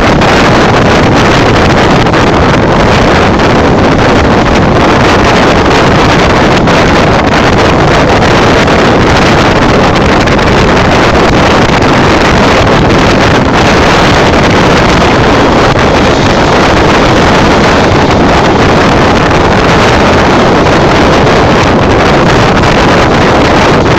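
Loud, steady rushing noise of a sleeper train running at speed, heard at the carriage window, with wind buffeting the microphone.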